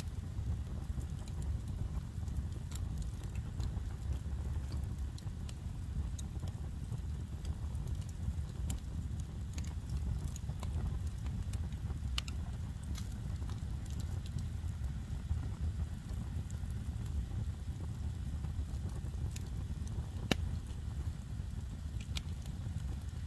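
Wood campfire of split logs burning, crackling with occasional sharp pops, the loudest about twenty seconds in, over a steady low rumble.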